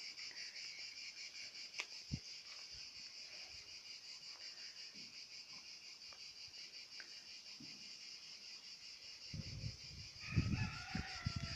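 Steady chorus of insects buzzing with a fast pulse. Near the end come a few low thumps and some brief higher calls.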